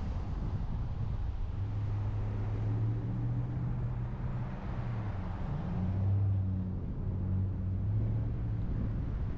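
Car engine idling with a steady low hum while stopped at an intersection, over a low rumble of road and wind noise.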